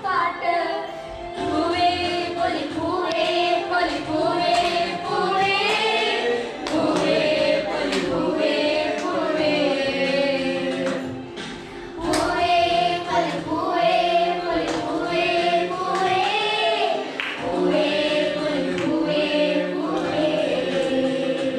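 A group of voices singing a song together, with wavering held notes.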